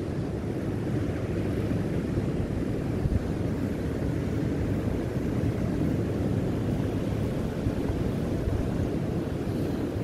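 Ocean surf breaking on a sandy beach, a steady low rumbling wash of waves, mixed with wind buffeting the microphone.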